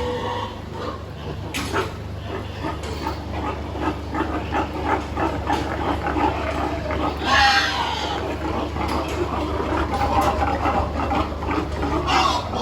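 A group of pigs grunting continuously, with a loud squeal about seven seconds in and a shorter one near the end, over a steady low hum.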